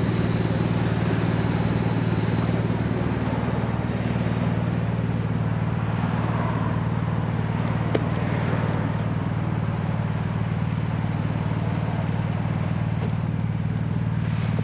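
BMW R 1150 RS boxer-twin engine idling steadily in neutral, with a single sharp click about halfway through.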